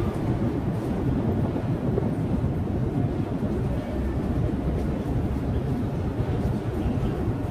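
Busy underground metro station ambience: a steady low rumble with the general noise of passengers moving through the hall.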